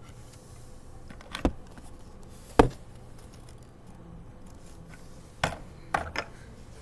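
A few sharp knocks and clicks of a plastic gear and a small rubber model-car wheel being picked up and handled close to the microphone, the loudest about two and a half seconds in and three more in quick succession near the end.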